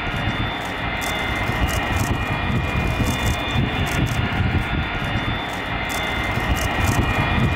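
Jet airliner's engines running loud and steady: a deep rumble with a steady high-pitched whine above it.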